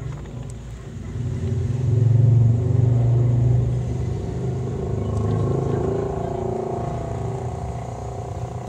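Nursing mother cat purring close by: a low, rapidly pulsing rumble that swells louder about two seconds in and then slowly eases off.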